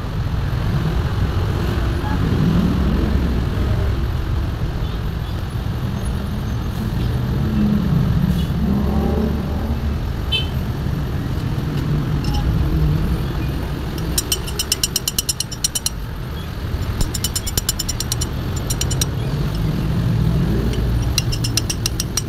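Steady low rumble of motor traffic nearby. Over it, about two-thirds of the way in and again near the end, come short runs of rapid, even clicking from a ratchet socket wrench turning.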